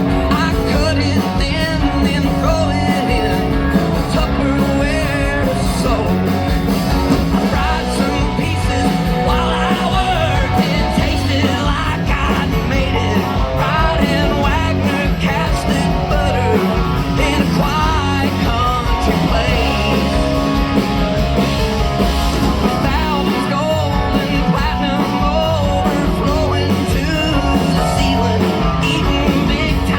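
Live band playing a country song, with a man singing lead over the band at a steady, loud level.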